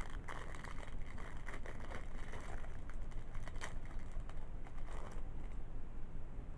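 Faint rustling and scattered small clicks of a clear plastic card pack being handled and opened, over a steady low hum.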